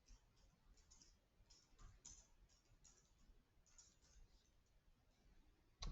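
Faint, irregular clicking, about two or three small clicks a second, with one sharper, louder click near the end.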